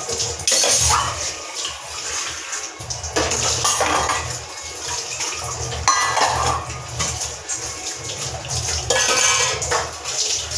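Steel pots and utensils clattering and clinking in a sink as dishes are washed by hand, with tap water running.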